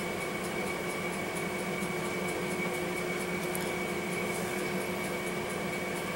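Steady mechanical hum of a running appliance, with a thin constant high whine and faint, even high ticking about four times a second.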